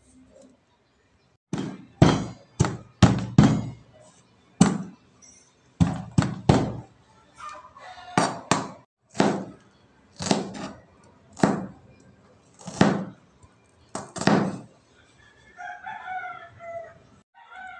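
Kitchen knife chopping ginger and red onion on a plastic cutting board: well over a dozen sharp chops in uneven clusters. Near the end, after the chopping stops, a chicken calls in the background.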